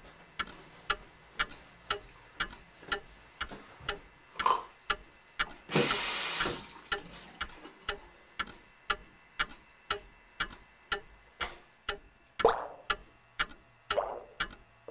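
Steady, loud ticking of a wall clock, about two ticks a second, with a brief rush of running water from the bathroom tap about six seconds in.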